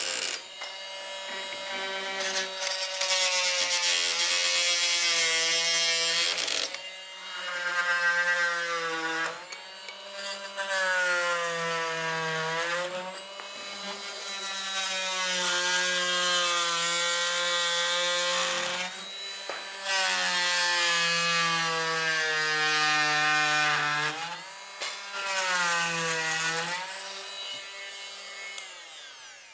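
Fein MultiMaster oscillating multi-tool cutting wooden door shims off flush with the jamb: a steady buzzing whine whose pitch dips as the blade bites into the wood and recovers as it frees. It runs in several cuts with brief pauses between them.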